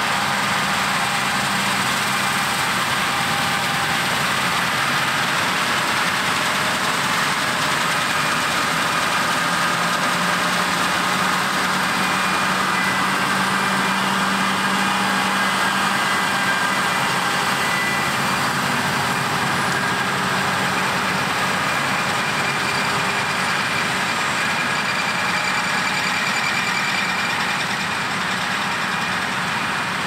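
Claas Lexion combine harvester working in wheat: a steady drone of the diesel engine and the threshing machinery, with no sudden events.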